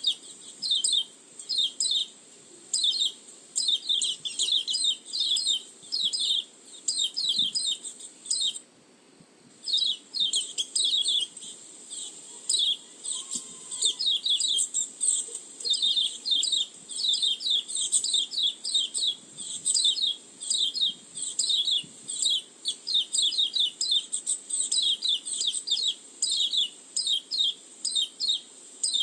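White-eye (pleci) lure call: a dense run of rapid, high chirps and twitters, broken by a pause of about a second near nine seconds in.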